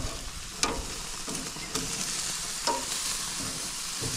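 Pork chops sizzling steadily on the grates of a gas grill, with a few sharp clicks of metal tongs against the grates and meat as the chops are turned and lifted off.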